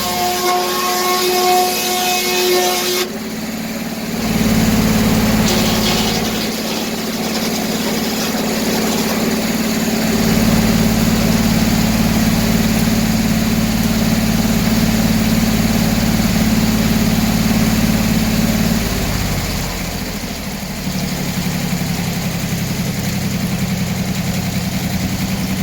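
Gas engine of a circular sawmill running steadily with its 48-inch inserted-tooth blade spinning, a thin whine over it for the first three seconds. The engine note drops slightly about 19 seconds in.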